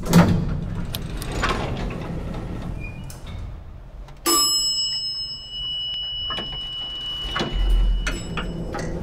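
Elevator sounds: a sudden whoosh at the start over a steady low hum, then about four seconds in a single bright elevator chime whose high ringing tone lingers and slowly fades.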